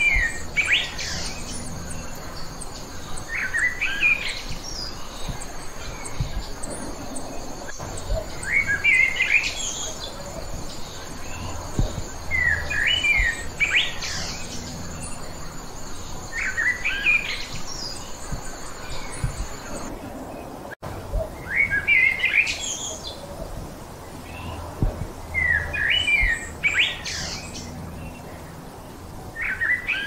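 A songbird repeating a short, quick, jumbled phrase of high notes every three to four seconds.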